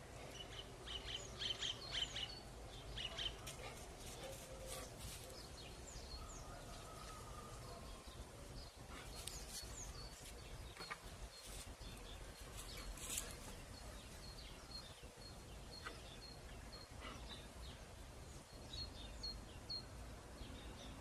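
Small birds chirping in the background, with quick high calls in the first few seconds and then a short high note repeated about twice a second, over a low steady background rumble.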